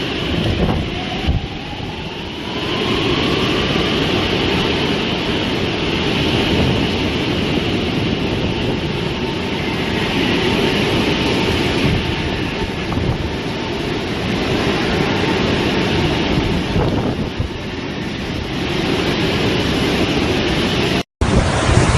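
Storm wind roaring steadily, with wind buffeting the microphone; it breaks off abruptly at a cut just before the end.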